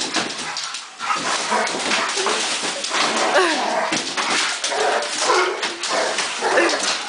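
Labrador retrievers whining in excitement, several short sliding cries, over the rustle and scrape of a large cardboard box being shoved and pawed.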